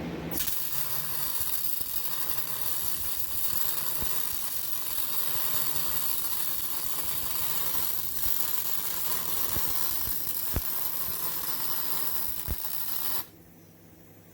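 Vulcan MigMax 215 MIG welder arc laying a bead: a steady crackling sizzle with scattered sharp pops. It starts just after the beginning and cuts off suddenly about a second before the end as the trigger is released.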